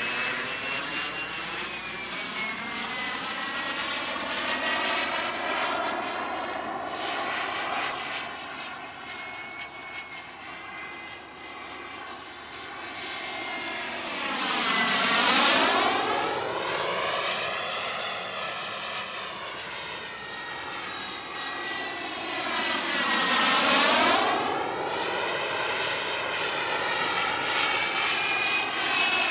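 Behotec J55 model jet turbine running in flight: a steady high whine over jet noise. It swells twice as the model flies past, about halfway through and again near the end, and the whine dips in pitch with each pass.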